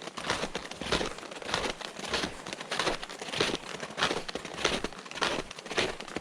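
A hiker's footsteps crunching on the trail while walking downhill, at a steady pace of roughly one and a half steps a second.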